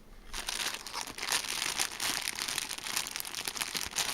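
Packaging crinkling and rustling as the plushies are handled and unwrapped, a dense run of small crackles that starts about a third of a second in.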